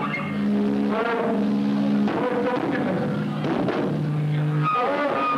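Rock band playing live, with held bass and guitar notes changing about once a second.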